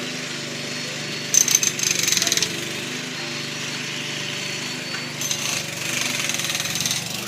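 A powered breaker (jackhammer) hammering in two short bursts of rapid blows, the first about a second in and the second near the end, over a steady engine drone.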